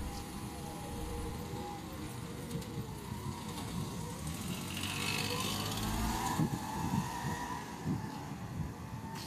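Small kei van pulling away and driving off at low speed, its engine note gliding down and up as it moves off.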